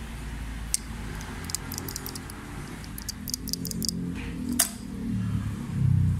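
Light metallic clicks and clinks of small diesel injection-pump parts and tools being handled on a workbench, a quick run of them about three seconds in and a sharper one a little later, over a steady low hum and background music.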